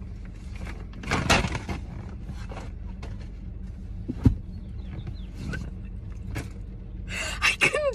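Steady low rumble of a car interior, with rustling and handling noises of people moving in their seats and a single sharp knock about four seconds in.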